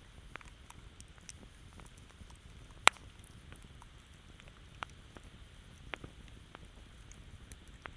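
Campfire crackling: scattered sharp pops and snaps over a low steady rumble, with one loud pop about three seconds in.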